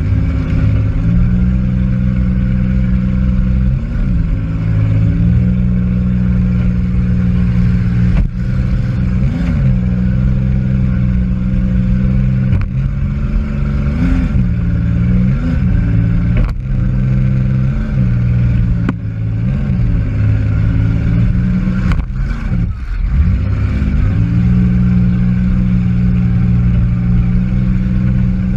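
Demolition derby car's engine running hard from inside the car, with short revs every few seconds and several sharp bangs of cars colliding.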